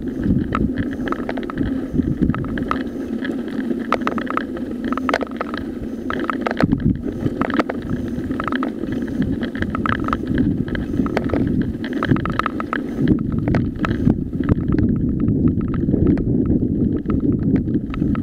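Mountain bike rolling fast down a loose gravel track: a steady rumble of wind on the microphone and tyres on gravel, broken by frequent short clicks and rattles from stones and the bike.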